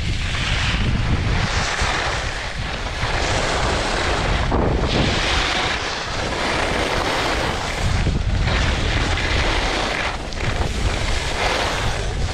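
Wind buffeting the camera microphone while skiing fast downhill: a constant low rumble. Over it, the hiss of skis on groomed snow swells and fades with each turn.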